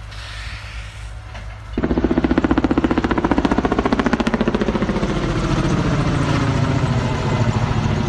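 Firefighting helicopter's rotor beating overhead, cutting in abruptly about two seconds in: a loud, fast, even chop whose pitch slowly falls as it passes.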